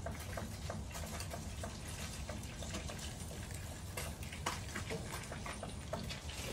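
Light, irregular taps and clicks of a small plastic ball and a cat's paws on concrete, one slightly louder tap about four and a half seconds in, over a steady low background rumble.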